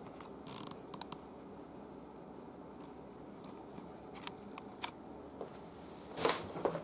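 Light handling noises from work on a breadboard radio: a few small clicks and taps scattered over quiet room tone, with a short louder rustle about six seconds in.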